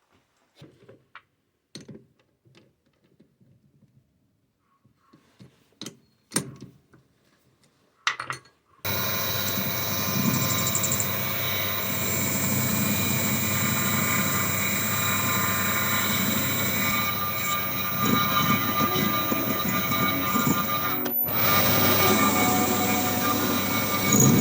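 A few light clicks and knocks, then about a third of the way in a small metal lathe starts abruptly and runs steadily, its motor and gearing whining with several steady tones.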